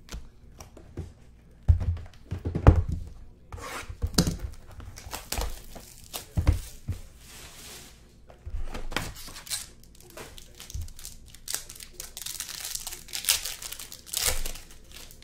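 Sealed trading-card boxes handled and set down with several knocks on the table, then plastic wrapping torn and crinkled as a box is opened, the rustling heaviest near the end.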